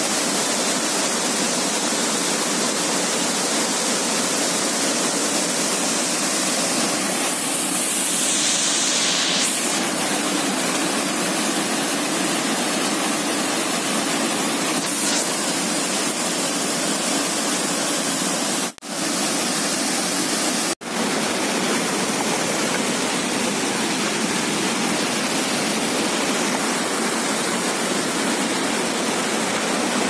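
Sirki waterfall in monsoon flow: a steady, loud rush of falling water. It breaks off for an instant twice, just past halfway.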